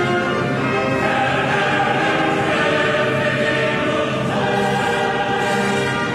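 Opera chorus singing sustained chords, a full choir of many voices.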